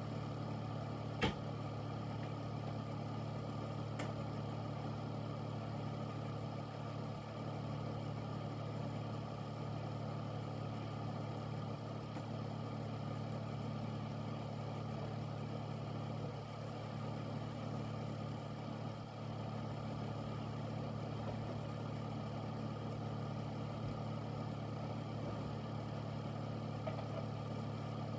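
Air filter fan running steadily: a constant low hum under an even rush of moving air, with a single sharp click about a second in.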